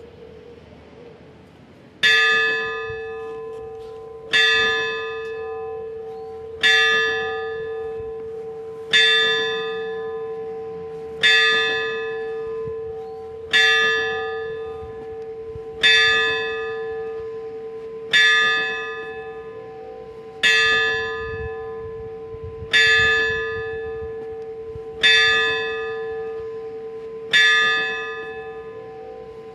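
A single church bell, cast by Hermanos Portilla, strikes the hour of noon: twelve evenly spaced strokes a little over two seconds apart, starting about two seconds in. Each stroke rings on and fades into the next over a steady hum.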